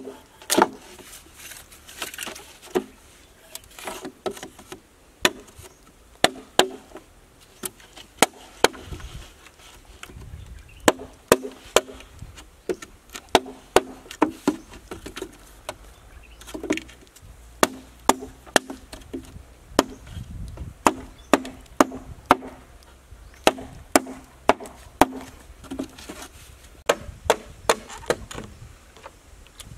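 A wooden mallet knocking on bamboo pegs and stakes, driving them into a bamboo raft frame: dozens of sharp wooden knocks at an uneven pace, sometimes in quick runs.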